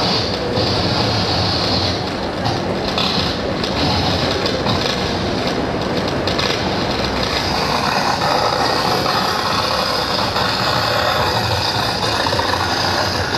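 Continuous loud mechanical noise: a steady low rumble with a high hiss over it.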